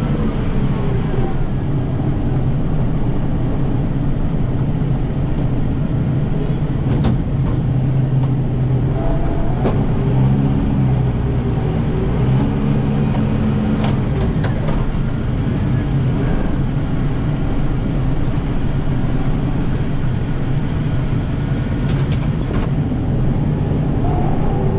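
Kubota 7060 tractor's diesel engine running steadily, heard from inside the cab, with a few sharp clicks.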